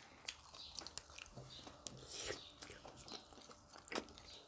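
Faint chewing and eating sounds of people at a meal, with small scattered clicks and one sharper click about four seconds in.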